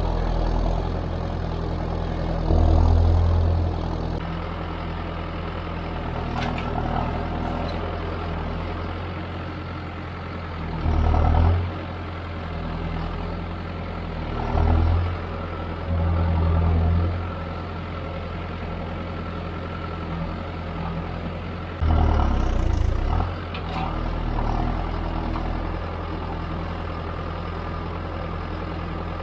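John Deere tractor's diesel engine running steadily under field work, with about five brief louder swells in its low drone.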